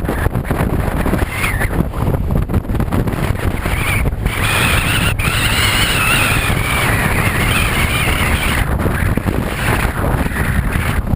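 Heavy wind buffeting the action camera's microphone on a moving motorboat, a steady low rumble throughout. A wavering high whine rides over it from about four seconds in until near the end.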